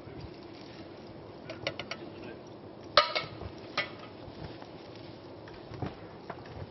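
Hard clinks while a bloomery furnace is charged with roasted ore: a few light clicks, then a sharp, briefly ringing clink about three seconds in and a smaller one just under a second later, like lumps of charcoal and loading tools knocking together.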